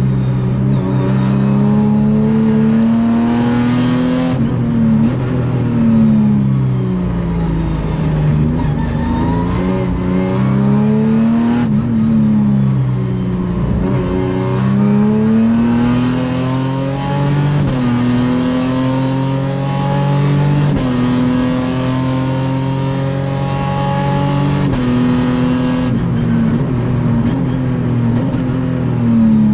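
Sprint Race car's V6 engine heard from inside the cockpit, repeatedly climbing in pitch under acceleration and dropping sharply at each upshift, then sliding down in pitch as the car slows for corners.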